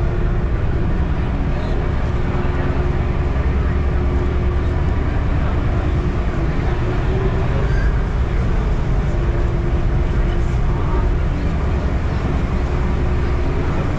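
Ferry's engines running underway, a steady low drone.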